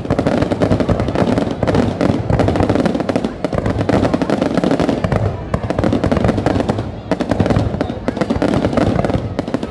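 Fireworks display: a dense, unbroken run of bangs and crackling pops.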